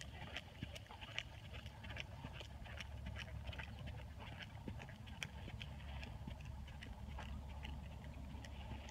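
Faint, irregular hoofbeats of an Oldenburg gelding at a working trot, on arena dirt and then on grass.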